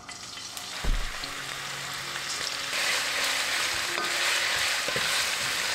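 Food frying in a hot pan with a steady sizzle that grows louder about three seconds in. A single knock sounds about a second in.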